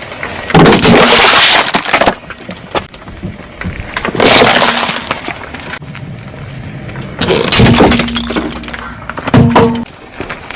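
Objects being crushed under a car's wheels: four loud bouts of crunching and breaking, about a second in, near four seconds, near seven seconds and near the end.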